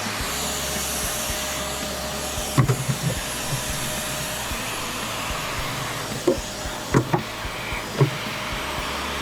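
Milwaukee M18 Fuel 3-in-1 cordless backpack vacuum running steadily, with several sharp clacks, the first about two and a half seconds in.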